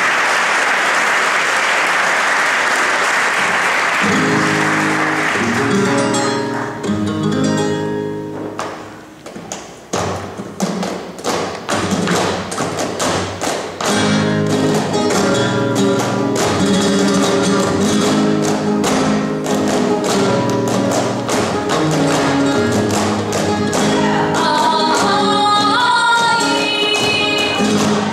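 Live flamenco music: a flamenco guitar with many sharp percussive taps through the middle, and a singing voice joining near the end.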